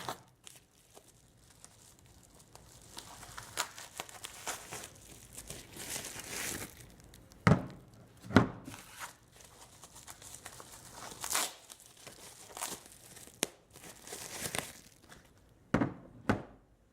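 Plastic packaging crinkling and tearing as copper battery terminals are handled and unpacked, with a few sharp knocks, the two loudest about seven and a half and eight and a half seconds in.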